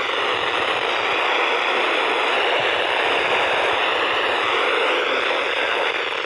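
Steady radio static hissing from a weather radio receiver tuned to a weak NOAA Weather Radio station, with no clear voice coming through.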